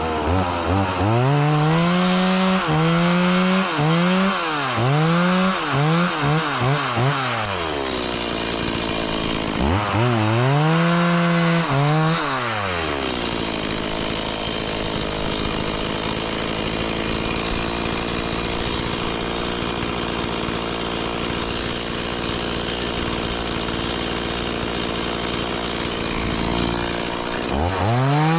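Two-stroke chainsaw revved in a quick series of short bursts, then settling to a steady idle for about fifteen seconds before revving again near the end.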